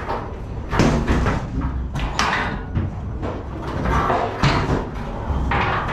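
Metal clanks and bangs from the steel walls, rods and gates of a cattle truck's trailer as someone climbs about inside it. Several separate knocks come a second or more apart, over a steady low rumble.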